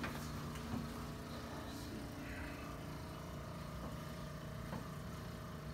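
A steady, low mechanical hum with a faint higher tone over it, broken by one or two faint knocks.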